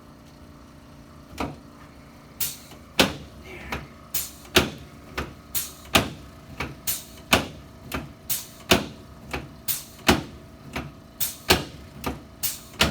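A steady run of sharp clicks or knocks, about two a second, starting about a second in.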